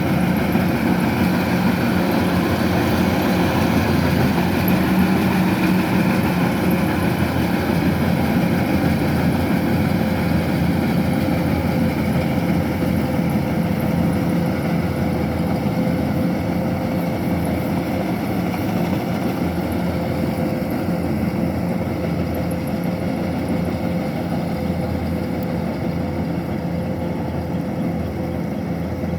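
Kubota DC-105X combine harvester's diesel engine running steadily, at an even pitch, while the machine works, growing slightly fainter over the last part.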